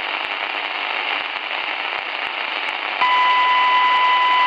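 Shortwave receiver tuned to a 2130 kHz railway communication channel, giving steady band-limited static hiss. About three seconds in, a steady high beep tone starts suddenly over the channel and is louder than the hiss.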